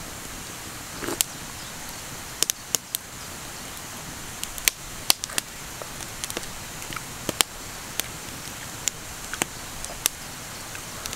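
Campfire crackling: irregular sharp pops and snaps over a steady hiss.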